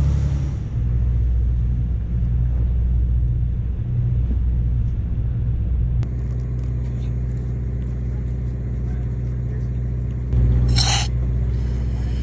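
Boat engine running underway, a steady low rumble; about six seconds in it changes to a steadier hum with even tones. About ten seconds in, a scuba regulator gives a short burst of hiss as its purge button is pressed.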